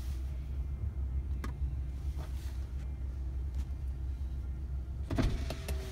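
Steady low rumble of a car heard from inside the cabin while it creeps along in traffic. Near the end come a few sharp clicks and a short whine.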